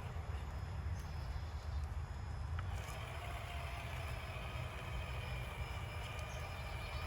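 An RC rock crawler's electric motor and geartrain whining steadily, starting about three seconds in, over a low rumble.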